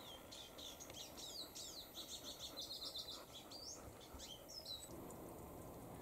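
A small songbird singing faintly: a fast, varied run of high chirps and slurred notes lasting about four and a half seconds, then stopping.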